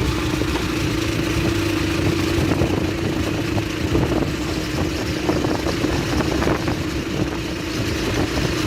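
Bulldozer's diesel engine running steady, with scattered clanks and rattles from its tracks.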